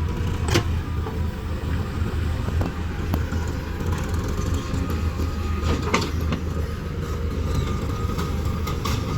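Diesel engine of a JCB 3DX backhoe loader running steadily as it digs and loads soil into a tractor trolley, with a low rumble and a couple of sharp knocks, one just after the start and one about six seconds in.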